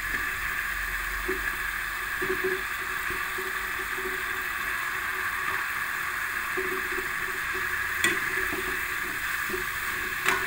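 Tempe bacem pieces in a wok of palm-sugar sauce, simmering with a steady sizzle. A metal spatula knocks against the wok a couple of times near the end as the pieces are stirred.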